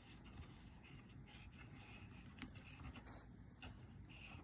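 Near silence: faint rubbing as a baseboard heater's switch is worked, with one faint tick about halfway through. There is no clear click from the switch, which the owner takes as a sign that the switch has failed.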